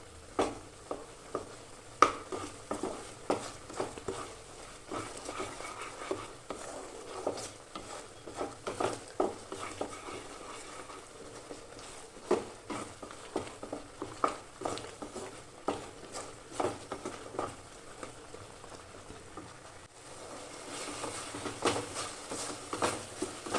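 Utensil scraping and knocking in a kadhai as a thick ginger, onion and jaggery paste is stirred and roasted, with a light sizzle that becomes steadier near the end. The paste is cooking down as its water dries off, thickening to a chyawanprash-like syrup.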